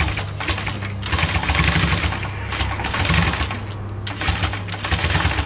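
Industrial sewing machine stitching a motorcycle seat cover, the needle clattering rapidly in several short runs that stop and start, over a steady low hum.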